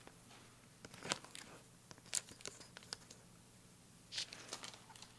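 Faint crinkling and rustling of a greeting card's clear plastic sleeve being handled, in short scattered crackles about a second in, between two and three seconds, and again near the end.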